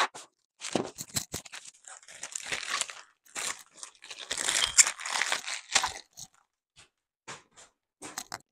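Transfer paper for a vinyl decal crinkling and tearing as it is handled, in irregular rustling bursts that are loudest about halfway through, followed by a few light taps.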